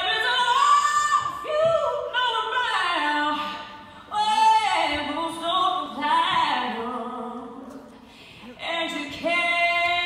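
A woman singing long, high held notes that waver with vibrato, with little or no instrumental backing; the singing drops away twice, briefly, between phrases.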